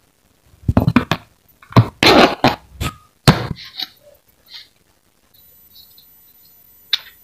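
Knife scraping chopped boiled chicken liver and gizzard pieces off a plastic cutting board into a plastic container: a quick run of knocks and soft thuds with a longer scrape, the loudest knock about three seconds in. Near the end, a single sharp click as a plastic cooking-oil bottle cap is opened.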